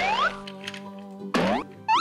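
Light background music with cartoon sound effects over it: a rising slide-whistle glide that ends just after the start, a quick falling glide about 1.4 s in, and a short up-and-down boing near the end.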